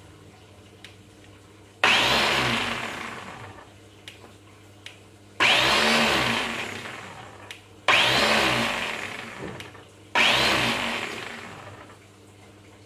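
Philips Avent SCF870 steamer-blender's motor and blade pulsed four times by twisting and holding the dial, blending food in its jar. Each burst starts suddenly and fades over about two seconds with a falling whine.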